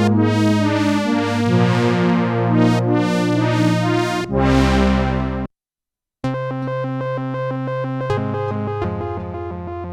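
Korg Minilogue XD four-voice analog synthesizer playing preset patches: chords over a moving bass line, each note with a bright attack that fades. It stops for a moment about halfway through, then a different preset comes in with held, steady chords over a changing bass note.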